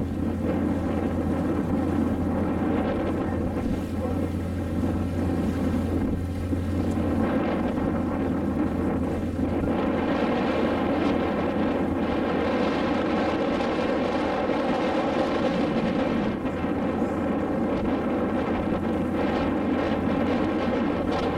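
Motor launch's engine running steadily, with wind buffeting the microphone; the engine note shifts slightly about seven seconds in.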